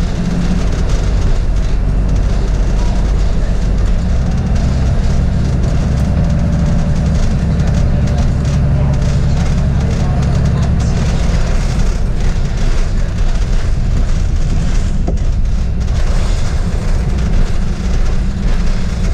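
Bus engine and road noise heard from inside the moving bus: a steady low drone with an even rushing hiss over it.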